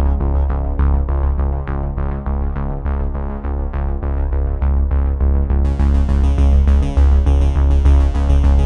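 Electronic background music: a synthesizer playing short plucked notes over a steady pulsing bass, with a brighter high end coming in suddenly about two-thirds of the way through.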